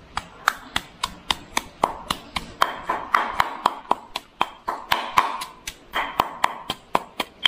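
Fresh turmeric being chopped: quick, even knife strokes, about four a second.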